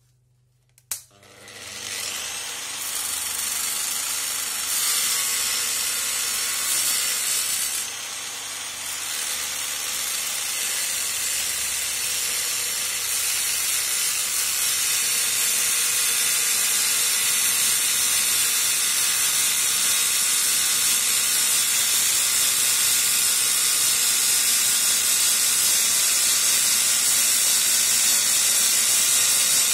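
Angle grinder starting with a click about a second in and spinning up. Its abrasive disc then grinds a screw thread into a steel shaft turning in a lathe chuck. The grinding makes a steady hiss that grows slowly louder.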